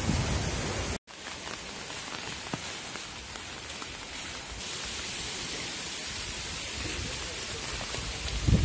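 Wind buffeting the microphone with a low rumble, cut off abruptly about a second in; then rain falling steadily on a wet street, an even hiss. Near the end a short gust rumbles on the microphone.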